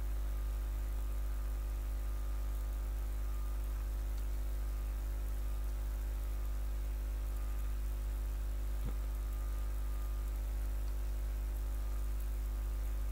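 Steady electrical mains hum with its string of overtones, constant throughout, under a faint hiss; one faint short tick about nine seconds in.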